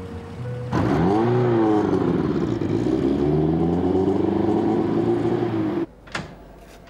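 Car engine accelerating as the car pulls away, its note rising and falling as it picks up speed. The sound cuts off suddenly near the end, followed by a single sharp click.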